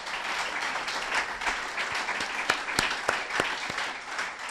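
Audience applauding steadily, with a few single claps standing out sharply in the middle.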